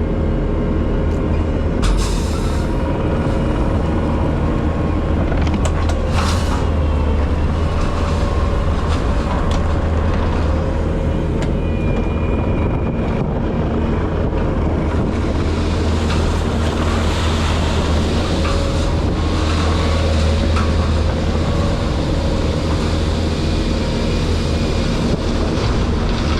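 Bobcat T770 tracked skid steer's diesel engine running steadily, a loud, constant low drone with a thin steady whine above it, and a few sharp clicks in the first few seconds.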